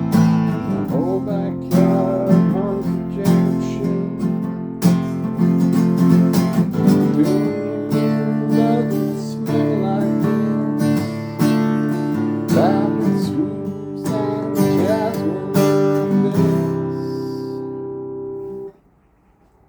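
Acoustic guitar music, with sliding notes, ending on a held final chord that stops abruptly about a second before the end.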